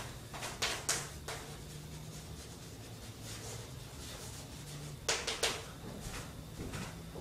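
Chalk tapping and scraping on a blackboard in short bursts as a word is written, over a steady low room hum.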